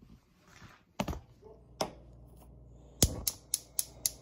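Gas stove burner's igniter clicking: two single clicks, then a quick run of about four clicks a second near the end, over the steady low rush of the lit burner flame under the frying pan.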